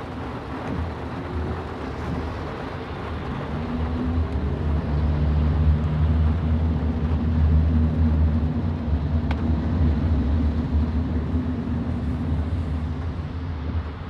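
Low vehicle engine and road rumble on a wet street, swelling over several seconds and fading again, over a steady hiss of rain and wet tyres.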